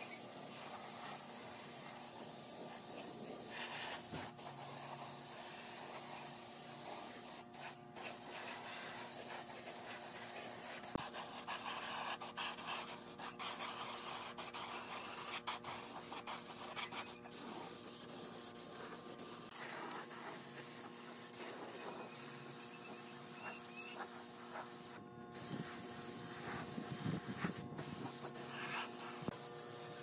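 Compressed-air gravity-feed spray gun hissing steadily as it sprays finish onto bare pine, broken off briefly a few times, with a steady low hum underneath.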